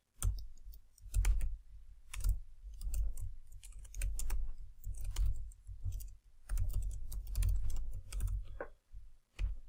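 Typing on a computer keyboard: uneven runs of keystroke clicks with short pauses between them.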